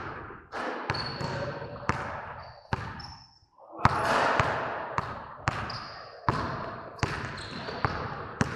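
Repeated sharp thuds at irregular intervals, about one or two a second, each ringing out in a long echo as in a large hard-walled room, with a few short high squeaks in between.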